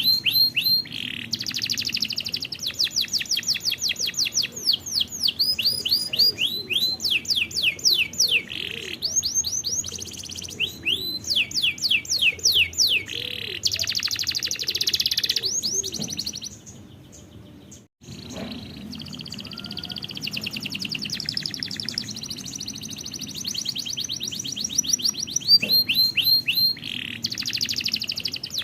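Domestic canary singing: long runs of rapidly repeated, falling trill notes, the trills changing speed and pitch from phrase to phrase. The song drops away and breaks off briefly about two-thirds of the way through, then resumes.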